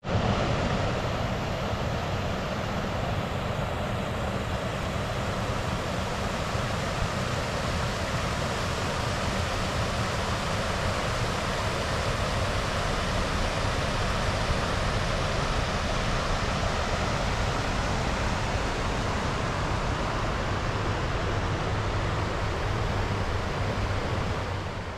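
Rushing river water, a steady noise without a break.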